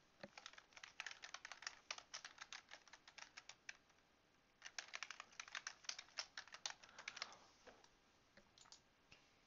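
Faint typing on a computer keyboard: two quick runs of keystrokes with a short pause between them, then a few lone clicks near the end.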